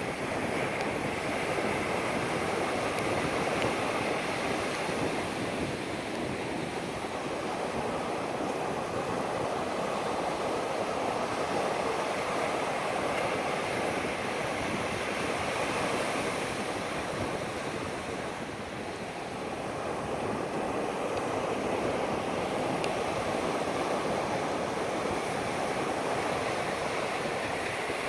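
Pacific Ocean surf washing onto a sandy beach in a steady, continuous rush, easing slightly a little past halfway before building again.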